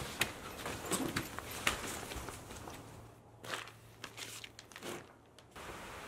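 Tent floor and sleeping bags rustling and crinkling as someone scrambles and picks up a pair of sneakers: a run of short rustles and soft knocks that thins out, then a steady faint outdoor hiss near the end.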